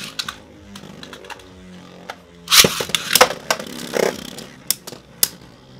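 Two Beyblade Burst spinning tops, Strike Valtryek V3 and Doomscizor D3, whirring steadily as they spin in a plastic stadium. From about halfway through they clash repeatedly with sharp plastic-and-metal clacks.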